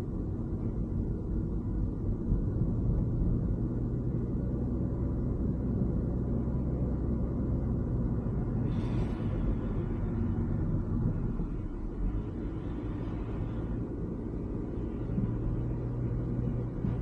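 Steady low rumble of a car driving on a wet road, engine and tyre noise together. A brief hiss rises and fades about nine seconds in, and a fainter one follows a few seconds later.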